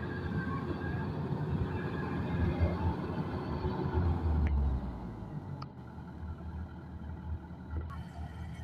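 Kubota DC105X rice combine harvester running, its diesel engine a steady low rumble that gets quieter about halfway through.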